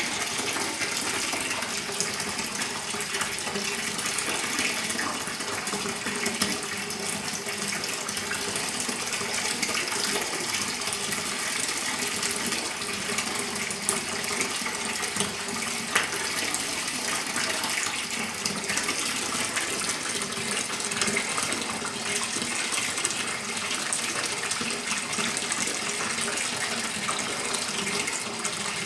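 Bath tap running, water pouring steadily into a shallow bathtub.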